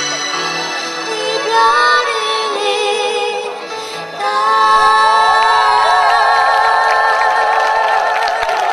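A woman singing over amplified music through a stage PA, holding a long note with vibrato from about halfway in.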